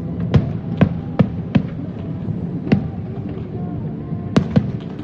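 Fireworks bursting: a run of sharp bangs, four in quick succession in the first two seconds, then one a little after the middle and two close together near the end, over a steady low rumble.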